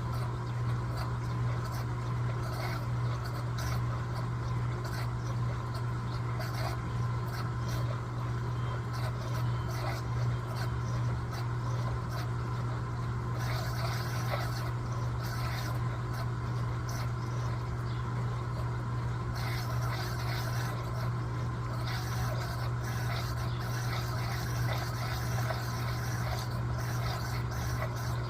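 Electrolux LTA15 top-load washing machine running through a wash cycle: a steady low motor hum with irregular swishing noise above it.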